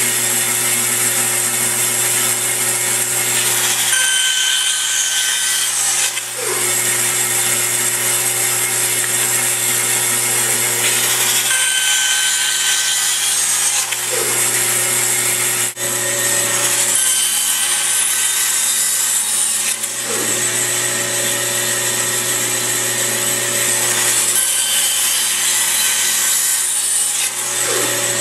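Band saw running steadily while it makes a series of crosscuts in wood, the sound changing every few seconds as each cut starts and ends.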